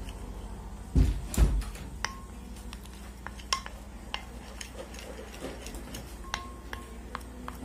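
A utensil stirring thick chocolate ganache in a glass dish, clicking and scraping against the glass with scattered sharp taps. Two dull thumps, the loudest sounds, come about a second in.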